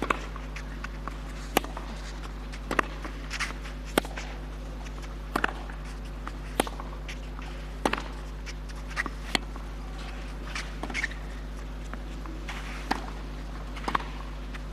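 Tennis rally on a clay court: rackets striking the ball in turn with sharp pops roughly every second to second and a half, and softer bounce clicks between, over a steady low hum.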